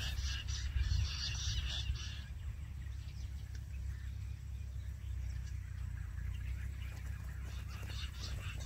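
Jungle bush quail calling: a rapid run of high, repeated notes for the first two seconds, then fainter notes again near the end, over a steady low rumble.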